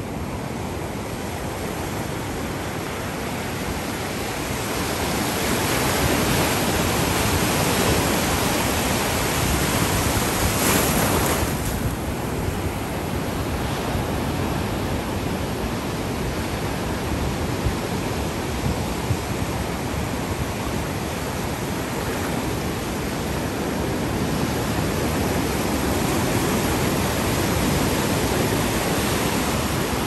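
Ocean surf, waves breaking and washing up the shore in a continuous rush that swells and eases. The loudest surge comes about ten seconds in.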